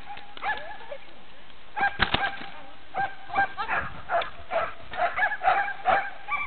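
Dog barking repeatedly in short, high-pitched barks: a few scattered barks at first, a loud cluster about two seconds in, then a quick run of barks, two or three a second, in the second half.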